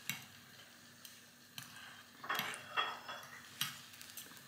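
Metal knife and fork scraping and clinking against a ceramic baking dish while pulling apart cooked chicken thighs: a handful of separate clinks with soft scraping between them.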